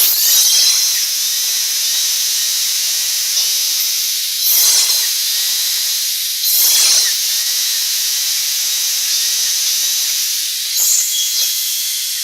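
Router machine for cutting biscuit slots running with a steady, loud, high hiss, swelling louder three times as it cuts.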